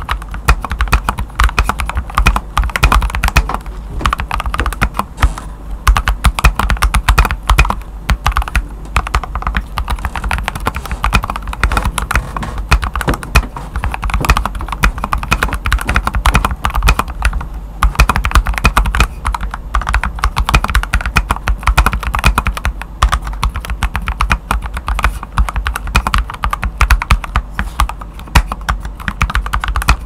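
Fast, continuous typing on a Nimbleback NB681 mechanical keyboard with Gateron Yellow Pro linear switches and Mars doubleshot PBT Cherry-profile keycaps: a dense, unbroken run of keystroke clacks.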